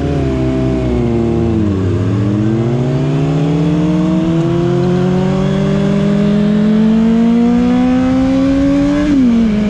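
Honda CBR600RR's 600cc inline-four engine heard from the rider's seat with wind rushing past: the revs fall for about two seconds, then climb steadily for about seven seconds as the bike accelerates, and drop sharply near the end.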